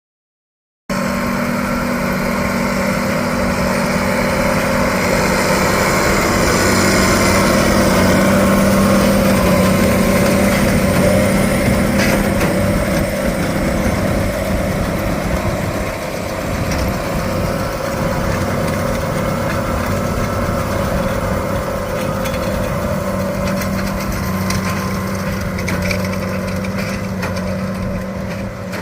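Engine of hay-baling farm machinery running steadily at working speed, with one sharp knock near the middle.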